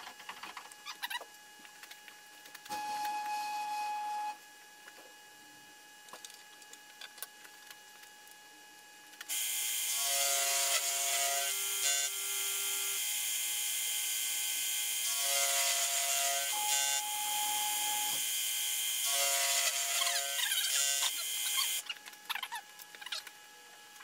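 Milling machine cutting teeth into an A2 tool steel ratchet blank, sped up seven times: a loud, even hiss with broken tones runs for about twelve seconds from roughly nine seconds in. Before and after it come quick clicks from the rotary table being handled and indexed, and a short steady run of the machine at about three seconds.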